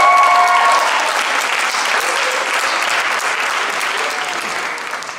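Concert audience applauding, with a few voices calling out in the first second; the applause slowly dies down toward the end.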